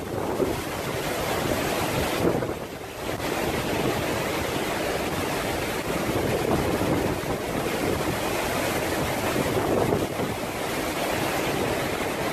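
Hurricane-force wind gusting across the microphone over the rush of storm-surge waves breaking onto a flooded bayfront, in heavy rain. The gusts rise and fall, easing briefly about two seconds in.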